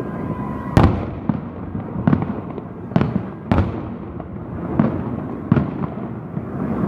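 Salute fireworks from ground launchers: shells bursting in an irregular series of about eight sharp booms, each trailing off in a brief echo.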